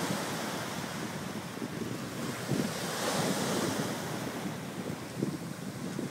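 Ocean surf washing in, with wind buffeting the microphone; a surge of wave wash hisses through around the middle.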